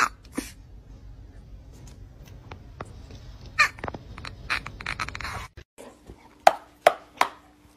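A Chihuahua making short grumbling vocal noises, a few in a quick cluster about three and a half to five seconds in. After a cut, six loud, short, sharp sounds come in a row, each about half a second after the last.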